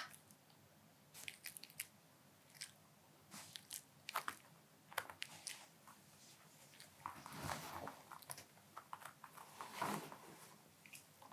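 A Pomeranian eating soft, wet food close to the microphone: irregular squelchy chewing and mouth smacks in short bursts, busiest a little past the middle and again near the end.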